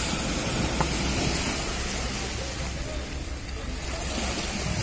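Small waves washing onto a rocky shoreline, with a steady low wind rumble on the microphone.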